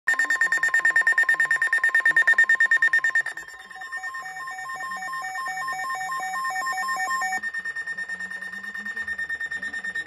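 Several NOAA Weather Radio receivers sounding their alert alarms for a severe thunderstorm warning: rapid electronic beeping over a steady high tone, changing at about three seconds in to a rhythmic alternation of two lower tones, then back to fast beeping at about seven seconds in.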